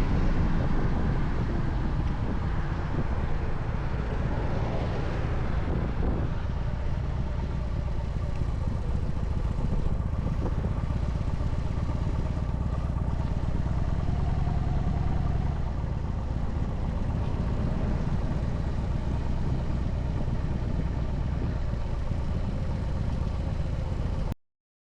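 Motorcycle running steadily at road speed, its engine drone mixed with heavy wind rumble on the microphone; the sound cuts off abruptly near the end.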